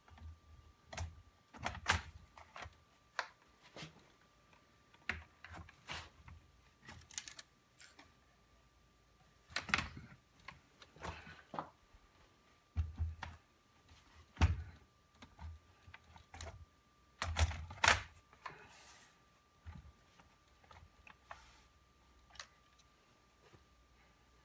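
Irregular plastic clicks and knocks from laptop parts being handled and set down during a hard-drive-to-SSD swap, some with a dull thump, loudest around ten, fourteen and eighteen seconds in.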